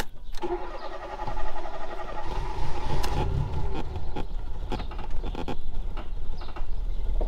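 Fiat Panda 4x4's starter motor cranking its flooded engine with the choke out. A steady whirring whine with a pulsing ripple lasts from about half a second in to about four seconds, under a lower rumble that builds partway through and keeps going as the engine turns over.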